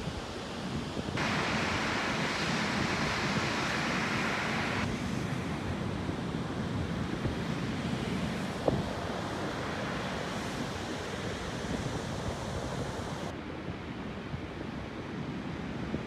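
Wind buffeting the microphone over the steady wash of ocean surf, with a louder hiss for a few seconds near the start.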